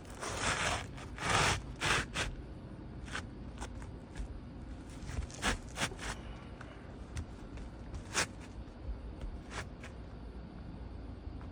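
Asphalt shingle scraping against the surrounding shingles as it is slid into place: a few longer scrapes in the first two seconds, then scattered short scrapes and taps.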